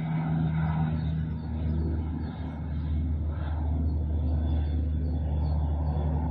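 Steady low rumble of urban background noise, like a vehicle engine running, with a faint steady higher tone; no rising or falling siren wail is clearly heard.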